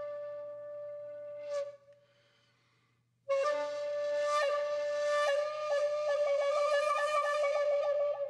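Background music on a flute-like wind instrument. A long held note breaks off after about a second and a half, followed by a short pause. From about three seconds in comes another held note with small ornaments, ending in a rapid trill of about seven notes a second.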